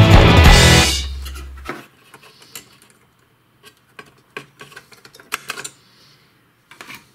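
Background music fading out over the first two seconds, then scattered light clicks and taps of small parts being unclipped and lifted off a circuit board by hand.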